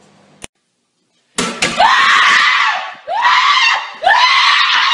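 A person screaming loudly: after a click and a second of silence, a run of long, high shrieks, each starting with an upward sweep in pitch.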